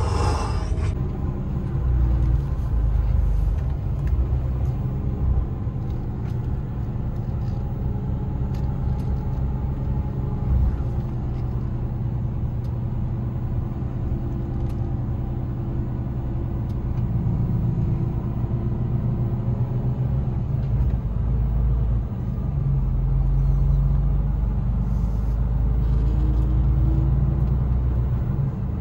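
Diesel truck engine and road noise heard from inside the cab while driving: a steady low drone, with the engine note shifting up and down a few times.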